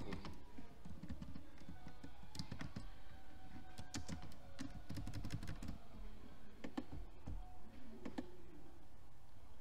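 Computer keyboard keystrokes: irregular clicks with short pauses, over a low steady hum.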